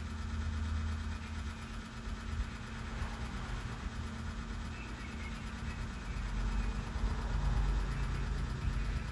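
Steady low rumble of a vehicle engine idling, with a constant hum.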